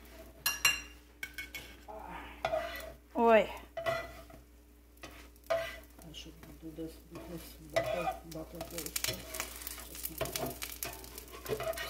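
Slotted metal spatula scraping and clinking against a frying pan as egg-dipped bread slices are moved and turned in sizzling butter and coconut oil. The sizzle thickens in the last few seconds. There is also one short pitched squeal about three seconds in, the loudest sound.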